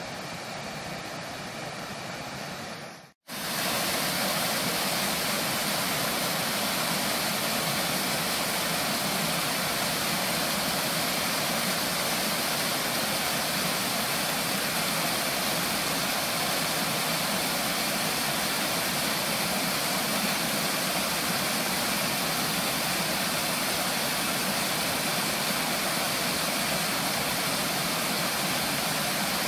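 Small waterfall pouring over rocks into a pool: a steady, loud rushing of water. About three seconds in, a quieter rushing cuts off abruptly and the louder water sound starts.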